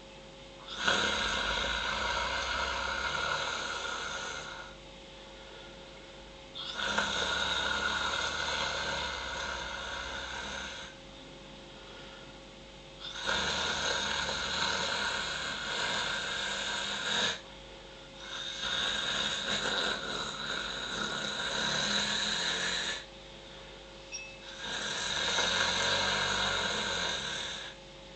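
A person snoring in sleep: five long snores of about four seconds each, a couple of seconds apart.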